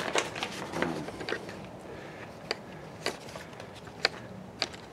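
A handful of light, sharp clicks and taps, spaced irregularly about half a second to a second apart, over quiet room noise: handling noise.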